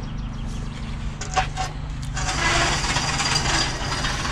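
Wooden formwork boards being handled: a few sharp knocks about a second in, then a longer rasping scrape of wood against wood, over a steady low hum.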